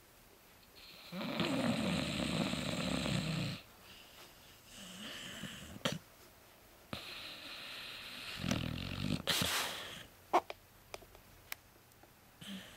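A sleeping dog snoring: a long, loud snore about a second in, a softer one after it, and another snore about two-thirds of the way through, followed by a few short clicks.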